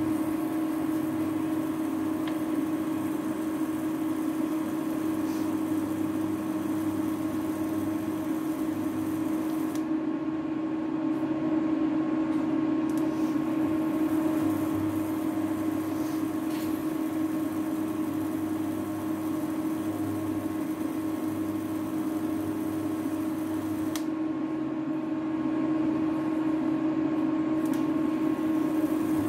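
Steady electric hum of an induction cooktop and its cooling fan running under a pot of dal being brought to the boil, with a few faint clicks.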